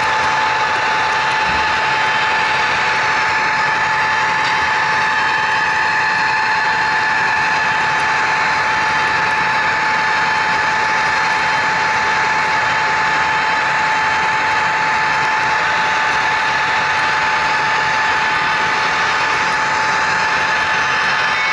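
HO scale model train running steadily along the track: a steady high whine over a constant rolling hiss from the wheels and mechanism.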